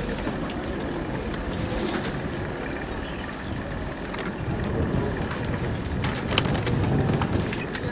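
Steady low rumbling noise of wind and water around an open rowing boat, growing a little louder about five seconds in, with a few sharp knocks near the end.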